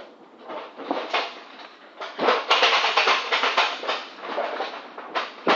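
Irregular rustling and scraping from load handling in a van's curtain-sided cargo box, loudest in the middle, with one sharp click about two and a half seconds in.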